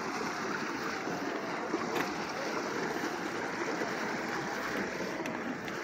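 Stroller wheels rolling over a wooden boardwalk's planks: a steady rolling rattle, with a sharper click about two seconds in.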